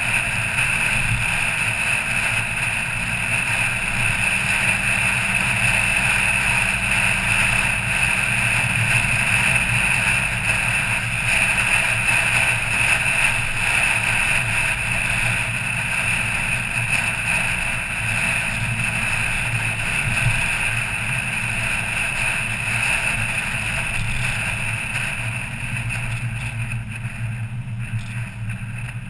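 A car driving steadily along a mountain road: a continuous engine hum mixed with tyre and road noise, easing off slightly near the end.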